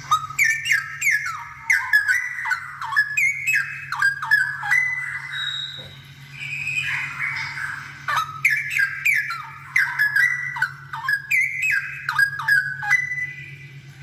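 Straw-headed bulbul (cucak rowo) singing loud, rich, bubbling warbles of quickly gliding notes, in two long phrases with a short pause between, the second starting about eight seconds in. A low steady hum runs underneath.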